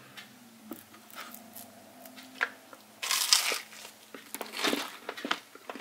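A bite into a slice of crisp buttered spelt toast about three seconds in, giving a loud crunch, followed by a few more crunches while chewing.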